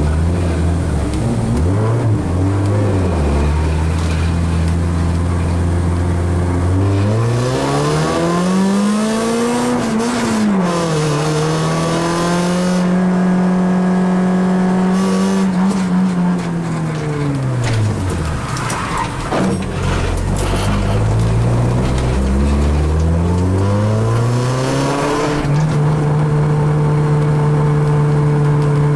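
Rally car's engine heard from inside the cabin: holding steady revs at the stage start, then launching about seven seconds in and rising in pitch to a sharp drop at a gear change. It holds steady, falls away as the car slows, then climbs again under hard acceleration.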